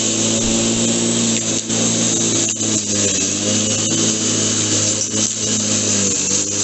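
Flymo Chevron 32 corded electric rotary lawnmower running while cutting grass: a steady motor whine with scattered sharp ticks.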